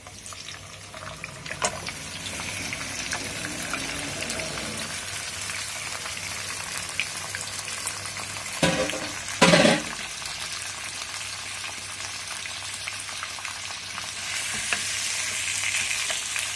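Mutton pieces sizzling as they fry in hot oil with onions in a nonstick karahi, the hiss picking up just after the meat goes in, with a spoon stirring and scraping through the pan. Two brief louder noises come about nine seconds in.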